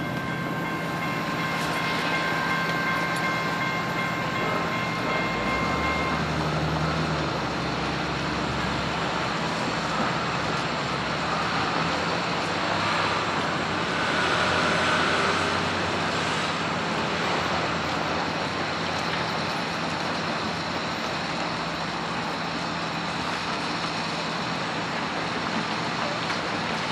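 Metra diesel-hauled commuter train of bi-level cars passing: a steady rumble and rush of the locomotive and cars rolling by, a little louder about halfway through. A steady high-pitched tone runs until about six seconds in, then stops.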